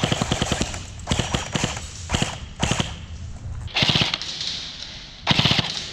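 Airsoft guns firing in rapid bursts of quick cracks, about six bursts, each a second or less long.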